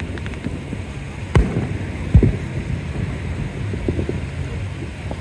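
Wind rumbling on the microphone over beach surf, broken by a few short dull thumps, the loudest a little after two seconds in.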